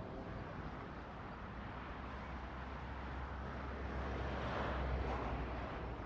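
Outdoor ambient noise: a steady hiss with a low rumble that swells from about two seconds in and eases just before the end.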